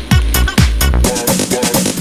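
Electronic dance music with a steady kick drum about twice a second and hi-hats. The deep bass and kick drop away about halfway through.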